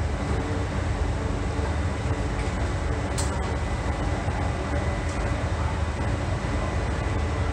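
Steady low hum and rumble of a London Underground Central Line 1992-stock train standing at the platform with its doors open, with a short sharp click about three seconds in.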